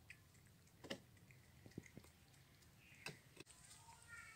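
Faint wet clicks of a cat licking and chewing ice cream off a plate, a handful of separate ticks over a few seconds, with near silence between them.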